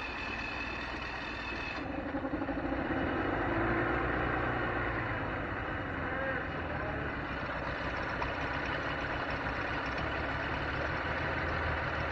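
Mercury 500 50 HP two-stroke outboard motor running just after starting, getting a little louder about two seconds in. Its newly replaced water-pump impeller is now pushing cooling water out of the discharge hose.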